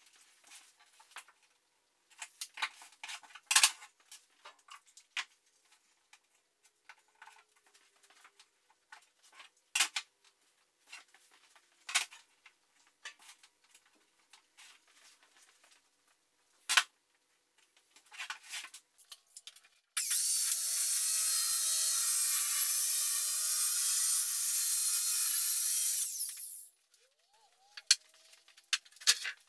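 Scattered light knocks and clicks of tools and clamps being set on a plywood sheet, then a handheld circular saw ripping through the plywood along a clamped straightedge, running steadily for about six seconds before cutting off sharply.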